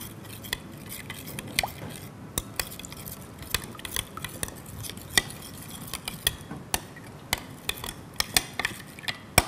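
A metal spoon clinking and scraping against a mixing bowl as a sauce of vinegar, rice vinegar and soy sauce is stirred, with sharp irregular clicks a few times a second.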